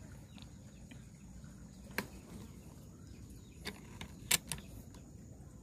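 A few short, sharp clicks and knocks of an air rifle being handled and moved, the loudest about four seconds in. Under them is a faint steady outdoor background.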